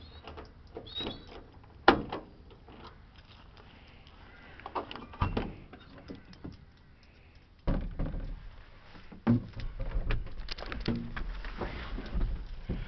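Key clicking in the door lock of a 1999 Ford Transit van, then the door opening with a sharp thunk about two seconds in, followed by more knocks, the door shutting and rustling as someone climbs into the cab.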